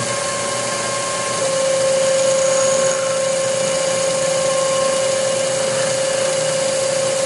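Emco Turn 220 P CNC lathe running a cycle: a steady machine whine over a constant hiss.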